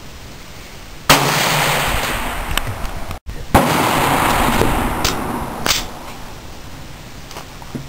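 Two gunshots from an AR-15 rifle fitted with a CMMG .22 conversion kit, about two and a half seconds apart. Each shot is a sharp crack followed by an echo that dies away over about two seconds, and a few fainter sharp clicks follow.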